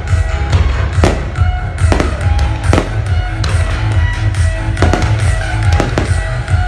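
Fireworks bursting overhead, sharp bangs at uneven intervals about once a second, over loud music with a heavy bass.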